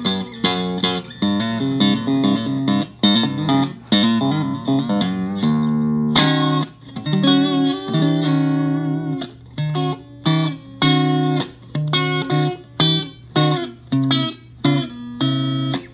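Electric guitar played through a Fender Champ 15 combo amp: a run of quickly picked single notes, a sustained chord about six seconds in, then short, choppy stabs about twice a second.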